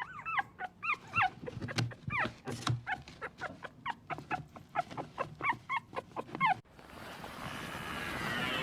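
An animal giving a rapid series of short, high yelping calls that slide in pitch, several a second, mixed with sharp clicks. About six and a half seconds in they stop abruptly and a steady noise takes over.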